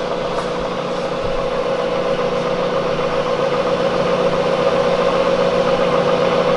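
Bridgeport Series I vertical mill's 2 hp spindle motor running steadily, a constant hum that grows slightly louder toward the end.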